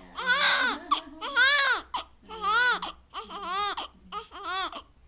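A newborn baby crying: a string of about six short, high wails, one after another, each rising and then falling in pitch.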